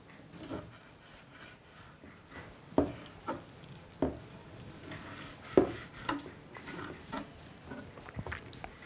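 Kitchen knife cutting raw liver into small cubes on a wooden cutting board: scattered soft knocks of the blade on the board, about one a second after a nearly quiet start.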